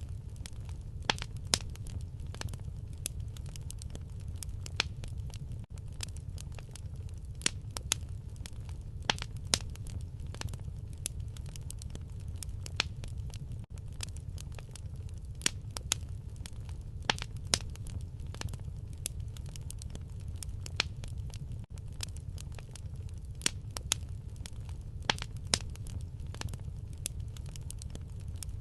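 Fireplace fire crackling, with frequent irregular sharp pops over a steady low rumble.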